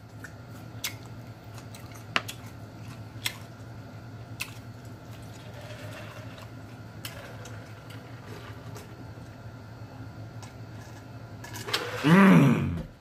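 Eating mouth sounds: sharp smacks and clicks about once a second from chewing and finger-licking, over a steady low hum. Near the end comes a loud, drawn-out voiced moan of enjoyment that rises and falls in pitch.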